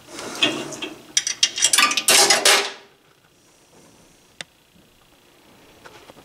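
Metallic clattering and clicking from the counterweight mechanism of a 1933 Watling penny scale as someone steps back onto it, with a scraping rush near the end of the clatter. Then it goes quiet, with one sharp click about four and a half seconds in.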